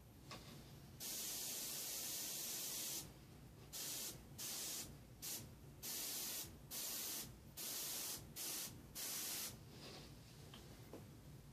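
Airbrush spraying paint in trigger bursts while outlining: one long spray of about two seconds, then a string of about eight short puffs of hiss.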